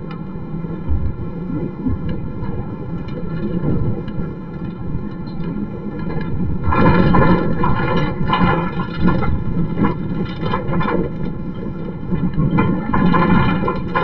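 Steady engine and road rumble heard from inside a moving bus, growing louder about halfway through and again near the end, with a steady pitched hum over it.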